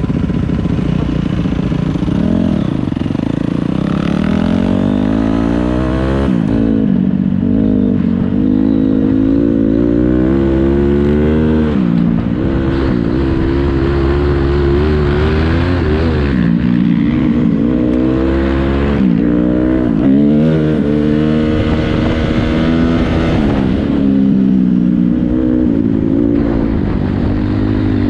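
Motocross bike engine being ridden hard, revving up in pitch and dropping back again and again as the throttle opens and closes.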